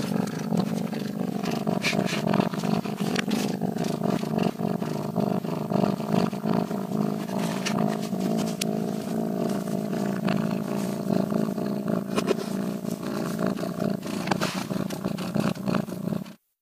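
A cat growling low and unbroken for a long time, with scattered sharp clicks over it; the sound cuts off suddenly near the end.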